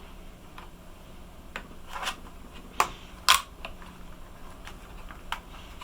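Small sharp clicks and taps of a laptop memory module being slid into its slot and pressed down until the slot's side latches snap closed, about eight in all, the loudest a little past three seconds in.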